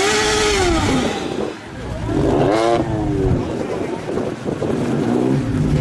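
Car engine revved hard twice through a loud exhaust, about two seconds apart, each rev rising and falling in pitch; the first comes with a loud rush of exhaust noise.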